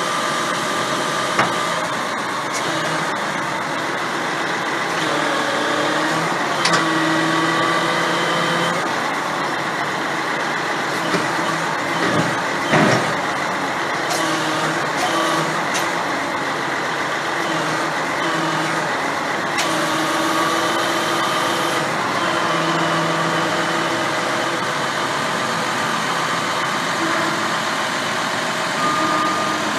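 Truck engine and hydraulics of a truck-mounted tandem reel loader running steadily as its arms move a cable reel. Humming tones come and go in stretches as the controls are worked, with a few sharp metal clanks around the middle.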